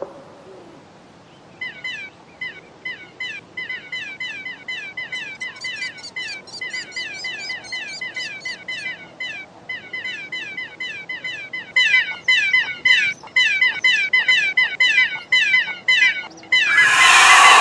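Nestling chicks cheeping: rapid, repeated short chirps, each falling in pitch. They start about a second and a half in and grow louder later on. Near the end a loud harsh burst of noise cuts across them.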